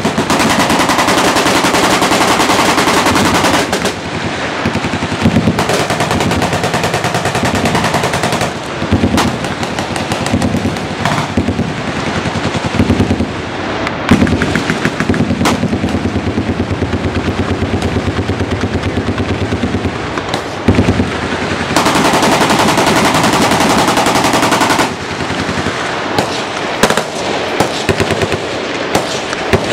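Several machine guns firing at once, overlapping streams of full-automatic fire. It is nearly continuous at the start and again about three quarters of the way through, and breaks into many separate bursts in between.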